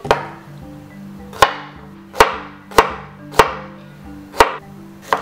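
A chef's knife chopping through Persian cucumbers onto a wooden cutting board: about seven sharp knocks at uneven spacing, each with a brief ringing tail. Soft background music with held notes runs underneath.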